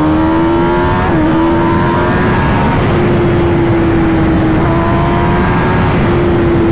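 Kawasaki ZX-10R inline-four through a new aftermarket Arrow exhaust under hard acceleration at highway speed. The engine note climbs, breaks briefly about a second in, then holds at high revs over heavy wind rush on the mic.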